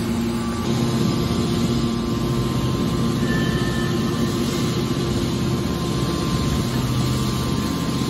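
Hydraulic scrap metal baler running, a steady hum of its hydraulic power unit with a low drone as the press lid closes over the scrap.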